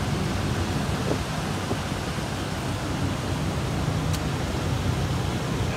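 Steady low engine rumble under an even, hissing outdoor noise, with no clear change through the stretch.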